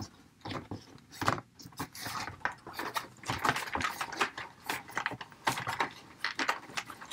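Cardboard packaging tray being handled, with the small plastic toy accessories inside rattling and clicking: a run of irregular light clicks and rustles.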